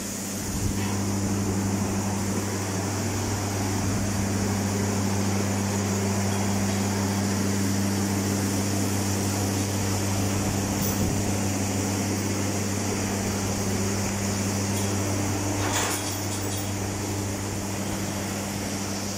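Cow shower system running: a steady electric motor hum with the hiss of water spraying over the cattle, and a brief knock near the end.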